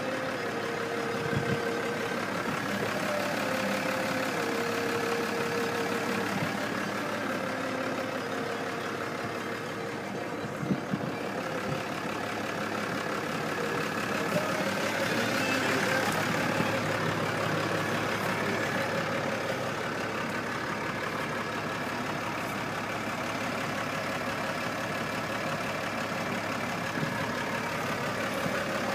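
Case IH MXU135 tractor running under load while pulling a New Holland disc mower-conditioner cutting hay: a steady engine and machinery drone, with a steady whine in the first few seconds.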